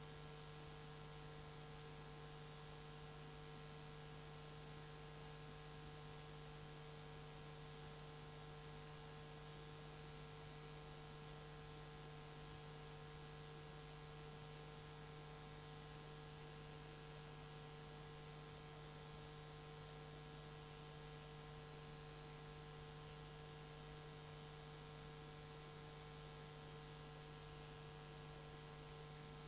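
Faint, steady electrical hum with a low hiss behind it, unchanging throughout, with no other sound on top: the recording's own noise floor.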